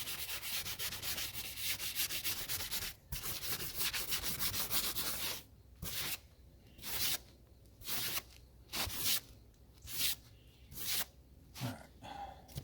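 Scraper brush scrubbing an old RV roof surface, clearing it so a patch will stick. It makes quick continuous back-and-forth strokes for about five seconds, with a brief break near three seconds, then slower separate strokes, about one and a half a second.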